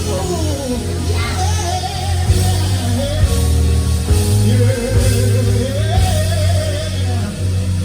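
Live gospel band music with a heavy bass and held organ-like chords, and a voice singing bending, drawn-out lines over it.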